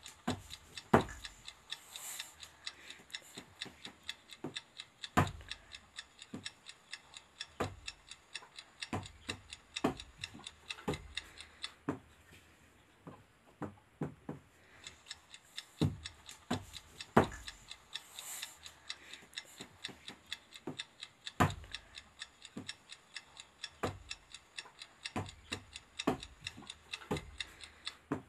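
Irregular clicking and ticking: several small clicks a second, with louder clicks every second or two.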